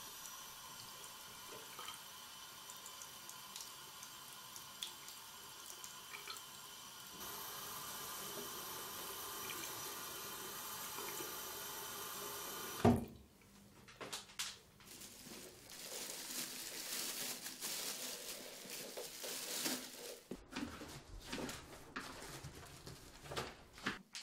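Water running from a bathroom tap into a washbasin, a steady flow that gets a little louder about seven seconds in. About halfway through, a single sharp knock cuts the flow off, and irregular splashing and handling sounds at the basin follow.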